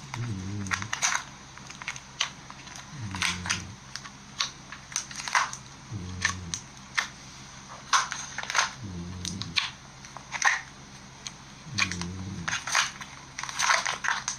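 Slime being squeezed and stretched by hand, giving many sharp, irregular clicks and pops as air pockets burst. A low hum of under a second recurs about every three seconds beneath it.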